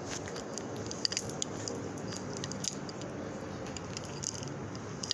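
Scattered small clicks, rustles and crackles from the phone being handled and moved while filming, over a steady background hum.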